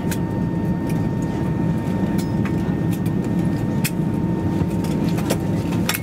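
Cabin noise of an Airbus A320 taxiing after landing: the engines' steady low idle rumble heard through the fuselage, with a faint steady high whine and scattered light clicks and rattles in the cabin.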